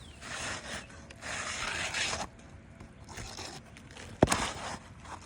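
Asphalt roof shingles scraping and rubbing as they are worked by hand, in three rough strokes, followed by a single sharp knock about four seconds in.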